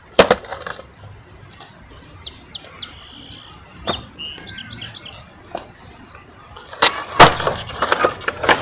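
Skateboard clacking: a sharp knock just after the start, then a loud run of clacks and rattles of the board and wheels in the last couple of seconds. Birds chirp briefly in the middle.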